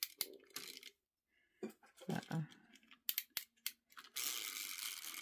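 Plastic toy Christmas train being handled on its plastic track: scattered clicks and knocks of the cars and track, then about four seconds in a short steady whir of its little battery motor as the train barely moves.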